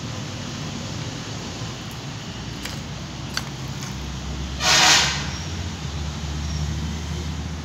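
A short vehicle horn toot lasting about half a second, a little past the middle. It sounds over steady background hiss and a low rumble like passing traffic.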